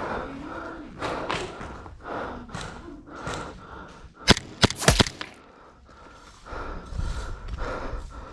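Footsteps and gear thuds as a player moves, then a quick string of four or five sharp airsoft gun shots a little past the middle.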